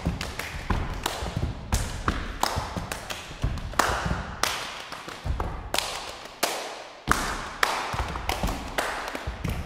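Body percussion by a quartet: hand claps, slaps on the body and foot stomps on a wooden stage floor in a quick rhythmic pattern of sharp hits and low thumps. The hits ring briefly in the hall.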